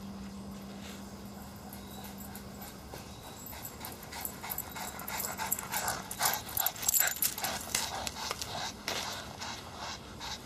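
Boston terriers panting hard with quick, rapid breaths close by, building up a few seconds in, loudest in the middle and easing off near the end.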